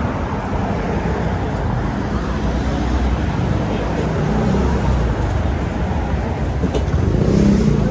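Road traffic on a city street: a steady rumble of passing vehicles, swelling louder near the end as a vehicle passes close.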